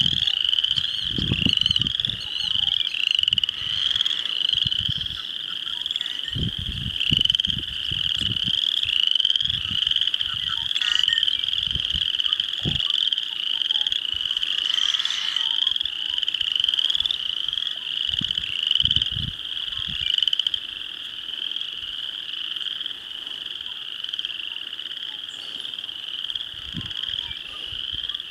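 Marsh chorus of many frogs trilling steadily together, one close-packed high trill repeating over and over. Occasional low rumbles come and go underneath.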